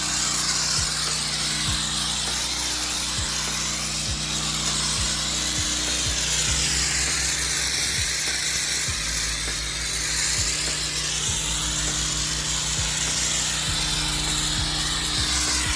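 Gas-engine pressure washer running steadily, with the strong hiss of high-pressure water spraying the pavers and a whoosh that sweeps up and down.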